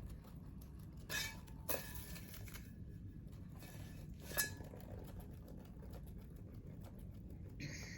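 Three brief light clinks of small hard objects being handled or set down, over a low steady room hum.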